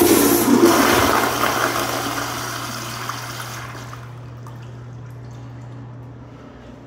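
2022 American Standard Cadet pressure-assist toilet flushing: an abrupt, loud rush of water that lasts about four seconds, then eases to a quieter steady flow of water.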